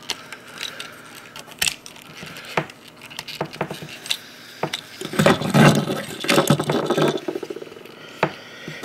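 Small hard-plastic parts of an Altimites DX Voltron figure clicking, rattling and rubbing as a lion piece is forced into its socket, with a louder stretch of scraping and clicking about five to seven seconds in. The piece is a tight fit and hard to put in.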